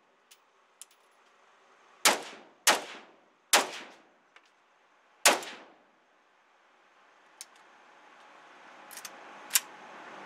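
Zastava M21 rifle in 5.56mm firing four single shots at uneven intervals, each with a short ringing tail. Lighter metallic clicks and clinks come in between and near the end.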